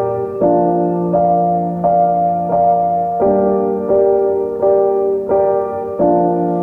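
Background music: a gentle piano melody with evenly paced notes, roughly one every 0.7 seconds.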